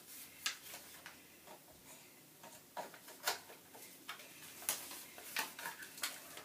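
Irregular light clicks and taps of plastic parts as a plastic airsoft gun is handled, with the sharpest clicks a little past the middle.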